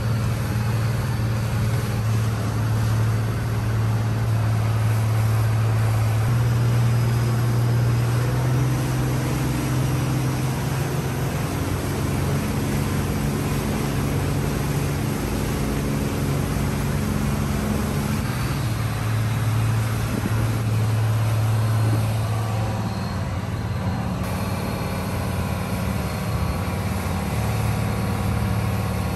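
Yanmar Arashio DE31F fishing boat running underway: a steady low engine drone that shifts slightly in pitch a few times, over the rush of water from the wake along the hull.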